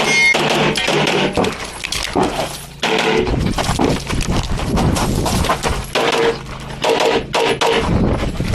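A competition pistol fired in quick strings of shots, the rapid cracks briefly letting up near three seconds in and again around six seconds in.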